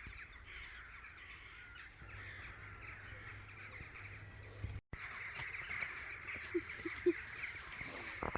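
A continuous chorus of crows cawing and chattering, with the sound cutting out for an instant about five seconds in.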